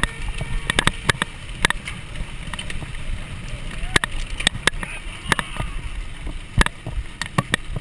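Mountain bike ridden fast over a dirt trail, heard from a camera fixed to the bike: a steady rumble of tyres and wind with frequent, irregular sharp rattles and knocks as the bike jolts over bumps.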